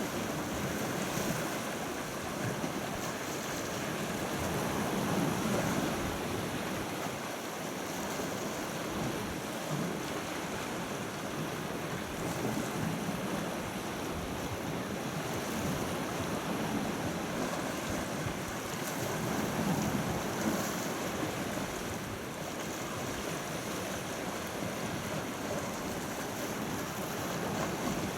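Sea water washing in slow swells, with wind on the microphone.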